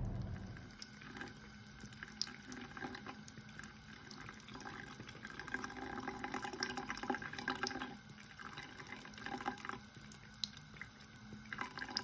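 Thin stream of water from a bathroom faucet running into the sink while a tabby cat drinks from it, with a steady low hiss and many small irregular splashy clicks.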